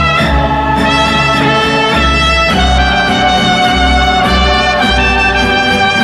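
Soundtrack music: held instrumental notes that change every second or so, over a pulsing low bass.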